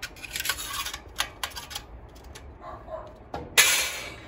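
Sheet-metal kamado vent adaptor plate being worked into the steel channel of a kamado's draft vent frame: a run of light metal clicks and scrapes, then a louder scrape of metal sliding on metal about three and a half seconds in.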